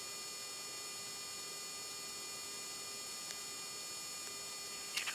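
Steady electrical hum with hiss, made of several fixed high and mid tones, with a few short clicks near the end.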